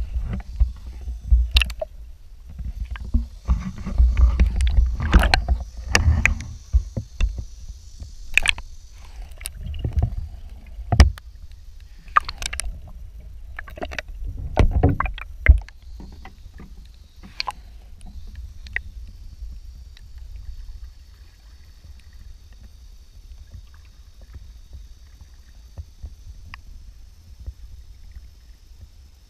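Water sloshing and splashing as a microphone dips in and out of the water beside a skin-on-frame canoe's hull, with muffled underwater rumble and many sharp knocks and splashes through the first half. The second half is quieter, with only a few splashes.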